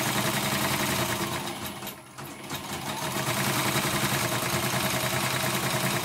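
Computerized embroidery machine, covers removed, stitching steadily with a fast rattle of needle strokes as its new rotary hook is test-run; it runs smoothly. It briefly slows and goes quieter about two seconds in, then picks up again.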